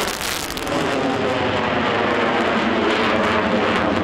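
Eurofighter Typhoon's twin jet engines in afterburner during a steep climb: loud, steady jet noise, dipping briefly just after the start.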